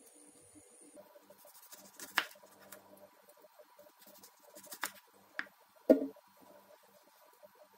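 Serrated kitchen knife and hands working lemon slices on a wooden cutting board: a few sharp knocks and taps on the board, the loudest about six seconds in, with quiet between.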